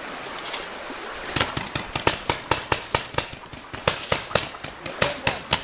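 Paintball markers firing in a rapid, irregular volley of sharp pops, about four to five a second, starting about a second in.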